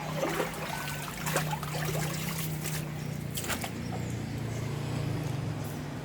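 Floodwater splashing and trickling, with irregular sloshes mostly in the first few seconds, over a steady low hum.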